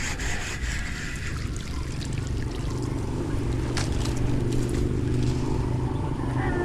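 A small engine running steadily, a low even hum that firms up in the middle.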